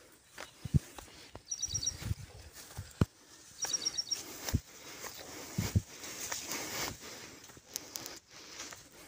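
Footsteps on a dirt field path with scattered dull thumps, and a small bird calling twice, each time a quick run of four or five high chirps.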